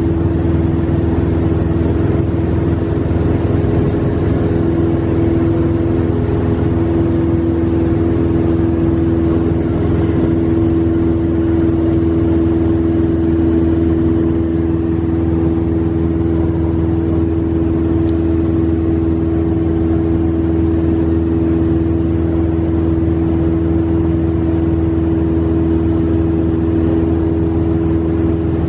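Single-engine light aircraft's piston engine and propeller running steadily in cruise, heard from inside the cabin as a constant, even drone with airflow noise.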